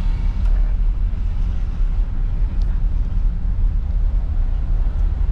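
Steady low road and engine rumble of a car driving along a town street, heard from inside the cabin.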